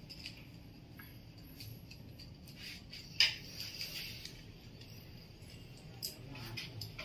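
A hand screwdriver scraping and clicking against a small metal wall bracket as its screw is driven in, with one sharp click about three seconds in, over a low steady background hum.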